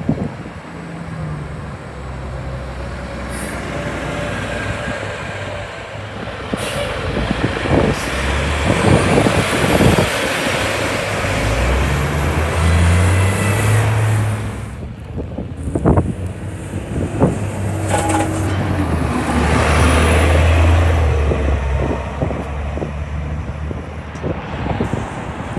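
Toronto Transit Commission city buses pulling away in traffic, one clip after another: the engines run up under acceleration with a low rumble and a high whine that rises as the bus gathers speed, with a few short hisses of air brakes.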